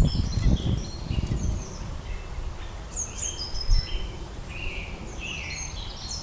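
Woodland birds chirping and calling, many short notes throughout. Low knocks and rumble in the first second or so.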